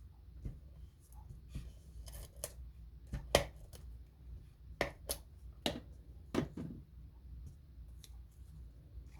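Paper and cardstock being handled and pressed down: scattered light clicks and taps, the sharpest about three and a half seconds in.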